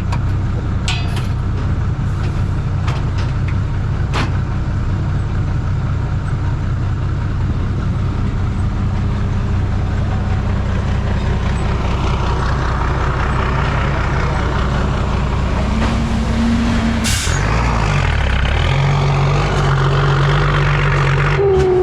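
Heavy dump truck engine with a loud exhaust running steadily. About 17 seconds in there is a short hiss, then the engine note wavers and settles into a higher, steady pitch.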